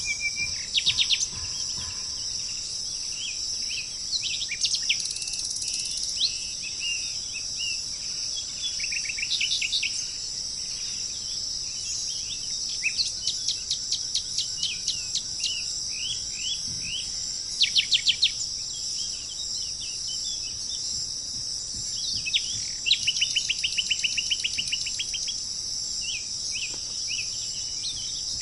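Several birds chirping and giving quick trills and rapid runs of repeated notes, over a steady high-pitched insect drone.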